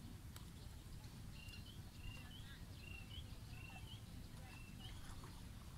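A bird calling over and over, a short flat high chirp followed by a quick rising one, repeated about five times starting a little over a second in, faint over a low steady rumble.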